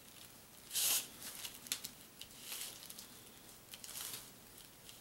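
Fine-tipped paint marker scratching on a paper hang tag in short strokes, faintly, with the loudest stroke about a second in.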